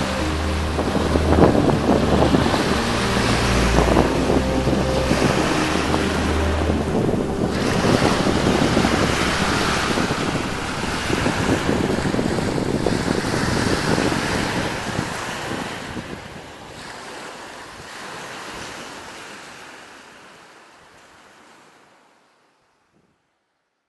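Surf of the Sea of Azov breaking and washing up on a sandy shore, with wind buffeting the microphone. The sound fades out over the last several seconds.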